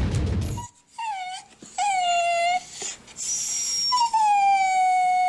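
A dog whining in several whimpers, each a held tone that dips slightly, the last one the longest at about a second and a half. The tail of music cuts off just before the first whimper.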